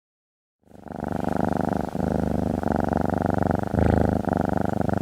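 Domestic cat purring, starting about half a second in: a dense, pulsing rumble broken by short pauses every second or so.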